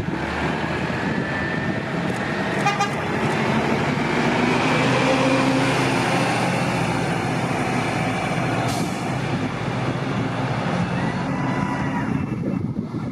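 Nova RTS transit bus accelerating past and driving away, its diesel engine loudest as it goes by about five seconds in and fading after. A short horn toot about three seconds in.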